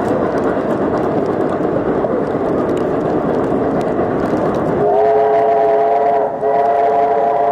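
Passenger train running with a steady rumble of wheels on track; about five seconds in, the steam locomotive's multi-chime whistle sounds a long blast of several tones at once, briefly broken about a second and a half later before sounding again.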